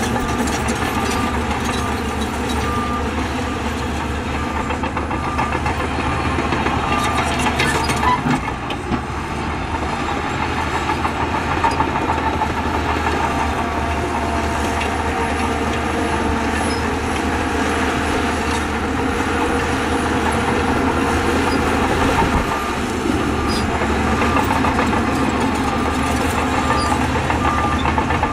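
Heavy diesel earthmoving machinery, a bulldozer and dump trucks, running steadily under load. A reversing alarm beeps about once a second early on and again near the end, and a few metallic clanks come about a third of the way in.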